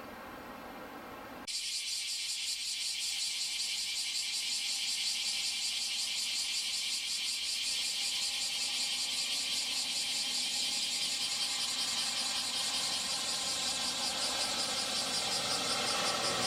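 Bombardier Dash 8 Q400 turboprop on landing approach: a high-pitched propeller whine with a fast pulsing buzz over several steady engine tones. It comes in abruptly about a second and a half in and grows steadily louder as the aircraft nears, with a deeper drone joining near the end.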